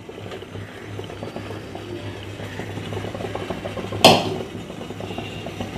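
Faint scraping and crackling of crumbly semolina puttu mixture being spooned from a pan onto a steaming cloth, with one sharp knock about four seconds in.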